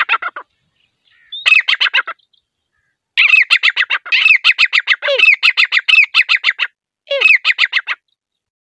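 Female grey francolin calling: rapid runs of sharp, downward-sliding notes, several a second, in four bursts. The longest run lasts about three and a half seconds in the middle, and a short one comes near the end.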